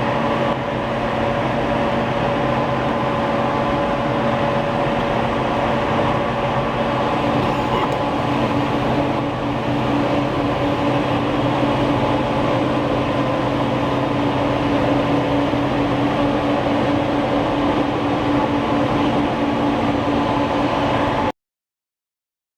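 Six-colour stack-type flexographic printing press running steadily: a loud, even mechanical noise with several constant hum tones. It cuts off abruptly to silence about a second and a half before the end.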